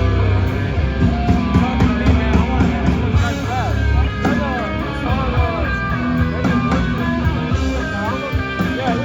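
Live death metal band playing at full volume: distorted electric guitar, bass and drums, with guitar notes bending up and down in pitch over a heavy low end.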